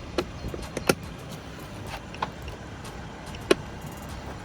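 A few sharp plastic clicks and taps from handling a car's side-mirror parts, the two loudest about a second in and about three and a half seconds in, over a steady low background rumble.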